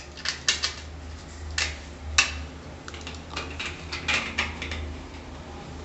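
Irregular sharp clicks and light knocks of a plastic ceiling rose and its small metal screws being handled and fitted onto a wall, loudest about two seconds in, over a steady low hum.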